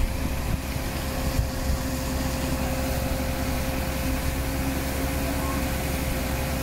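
Fire trucks' diesel engines running steadily under load, with a constant droning hum, as they pump a water jet and work the aerial ladder.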